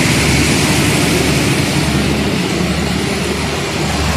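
Passenger coaches of a State Railway of Thailand train rolling past close by: a loud, steady rumble and rush of wheels on the rails with a low drone underneath.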